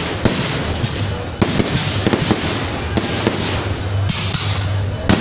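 Aerial fireworks bursting overhead: a dense, continuous crackle of many small sharp pops, with a few louder cracks among them.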